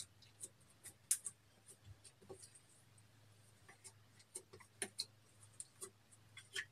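Faint, scattered sticky clicks and small pops of slime being handled and pulled, over a low steady hum.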